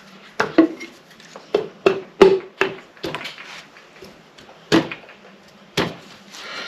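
Small metal engine parts and tools being handled and set down: about ten irregular sharp clinks and knocks, the loudest a little over two seconds in.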